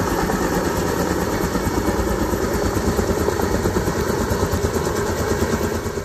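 Kaman K-MAX helicopter hovering overhead, its intermeshing twin rotors giving a steady, rapid chop over the engine noise.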